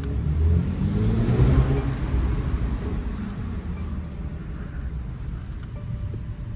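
Mercedes-AMG E43's twin-turbo V6 engine pulling under acceleration, growing louder over the first couple of seconds, then easing off to a steadier, quieter run.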